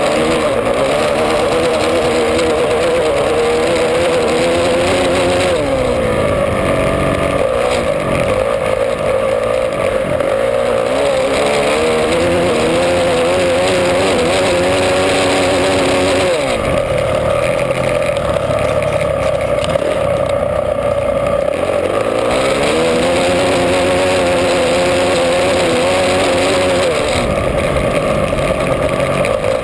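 Honda CRF450 single-cylinder four-stroke flat-track motorcycle engine at racing speed from the rider's helmet camera, its pitch dropping and climbing again several times as the throttle rolls off and back on for the oval's turns, with wind rushing over the microphone.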